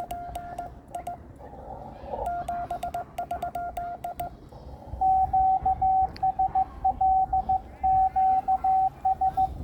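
Morse code (CW) from an amateur radio transceiver: a few groups of keyed tones with faint clicks, then from about five seconds in a louder run of Morse at a slightly higher pitch, over steady receiver hiss.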